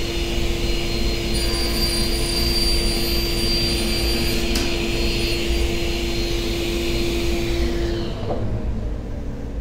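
Felder table saw running a 250 mm, 60-tooth crosscut blade, with a steady motor hum, as it crosscuts a piece of ash, which it cuts easily. The cut runs from about one second in to about four and a half seconds, ending in a click. The hum cuts out about eight seconds in as the saw is switched off.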